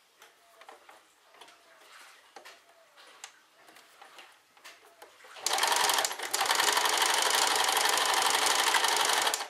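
A few faint clicks, then, about five and a half seconds in, an electric domestic sewing machine starts stitching at a fast, steady run through the fabric, falters briefly just after starting, and stops abruptly near the end.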